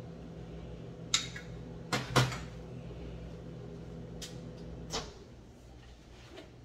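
Microwave oven running with a steady low hum while it warms food, with several sharp clicks and knocks; the hum cuts off with a click about five seconds in.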